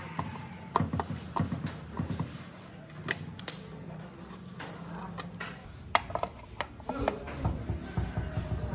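Scattered small clicks, taps and scrapes of a screwdriver working the wiring terminals of a push-button motor switch, and of the switch's plastic housing being handled.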